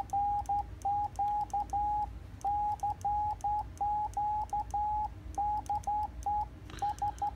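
Morse code from a homebrew Michigan Mighty Mite one-transistor crystal transmitter on its 3.579545 MHz colour-burst crystal, heard as a tone of about 800 Hz through the receiver. It is hand-keyed in short and long notes, with a slight chirp at the start of each.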